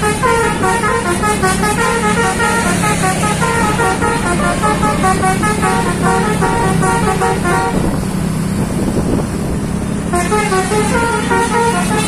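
A bus's Basuri telolet horn, a multi-trumpet musical horn, playing a fast melody of short stepped notes over the low hum of the bus engine. The tune breaks off for about two seconds and then starts again.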